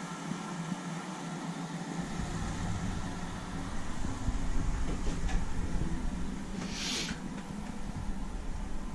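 Bathroom air-conditioner unit running with a steady mechanical hum. A low rumble joins about two seconds in, and a short hiss comes about seven seconds in.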